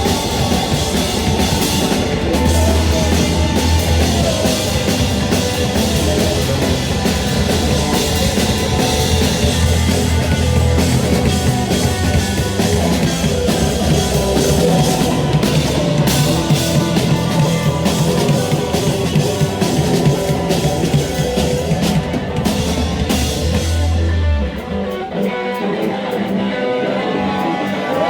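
Rock band playing, with drum kit and electric guitar. Near the end the drums and bass drop out for a few seconds, leaving the guitar, and then come back in.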